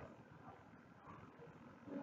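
Near silence: faint background room noise.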